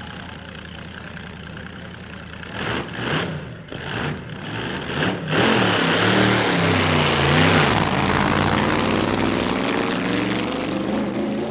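The Tennessee Bo-Weevil's supercharged dragster engine idling with a steady low note, then blipped several times from about two and a half seconds in. About five seconds in it revs up and holds loud high revs, its pitch wavering.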